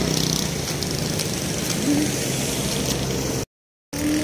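Street traffic noise: a steady wash of road sound with a low engine hum from passing vehicles. It cuts to complete silence for about half a second near the end.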